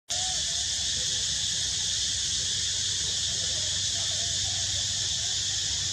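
Steady high-pitched drone of an insect chorus, unchanging throughout, with a low hum beneath it.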